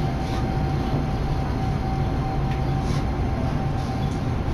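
Nagoya Municipal Subway Tsurumai Line train heard from inside the car: a steady low rumble with a thin, steady whine over it and a few faint ticks.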